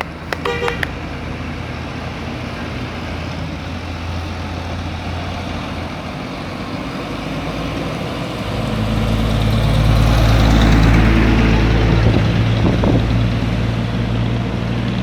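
Roadside traffic noise, with a few short sharp sounds just after the start. About eight seconds in, the deep engine rumble of a heavy vehicle builds as it passes close, loudest around ten to eleven seconds, then eases off.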